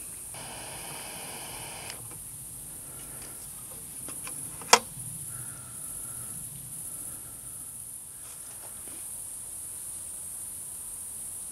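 Crickets chirping steadily in a high-pitched drone, with one sharp click about five seconds in.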